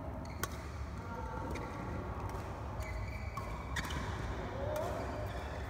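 Badminton doubles rally: rackets striking the shuttlecock with sharp hits about once a second, and court shoes squeaking briefly on the mat, over a steady low hum.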